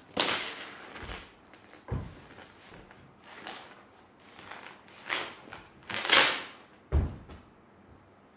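Footfalls on a wooden stage floor: a few heavy thuds, about a second in, at two seconds and near the end, with scuffing and swishing noises between, the loudest swish just before the last thud.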